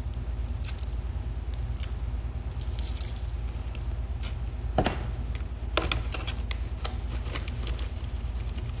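Someone eating lobster: scattered small clicks and wet squishes from chewing and handling the meat, over a steady low hum.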